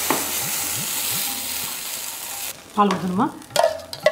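Ground moong dal and coconut mixture poured into hot ghee in a steel kadai, sizzling with a steady hiss. The sizzle cuts off suddenly about two and a half seconds in, and brief voice sounds follow.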